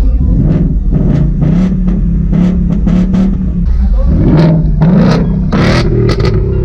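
Car engine with a loud aftermarket exhaust, held at high revs with a near-steady pitch that sags a little past halfway and climbs back. A string of sharp pops and bangs from the exhaust runs through it.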